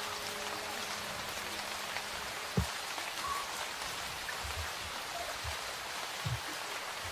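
Steady rain falling, an even hiss of drops on wet ground and foliage, with a few short dull low thumps, the loudest about two and a half seconds in.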